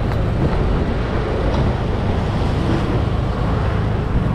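Motorbike engine running steadily with road and wind noise while riding along a street, other motorbikes in traffic around it; a low steady hum throughout.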